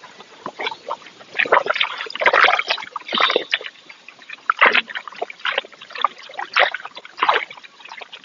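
A cow drinking water, with a run of irregular slurps and splashes.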